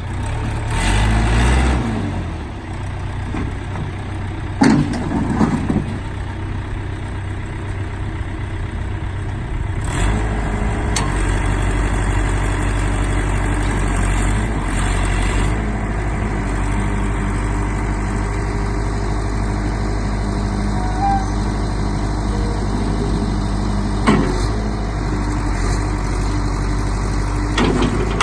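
John Deere 210C backhoe's diesel engine running steadily, getting louder about ten seconds in, with a few short knocks along the way.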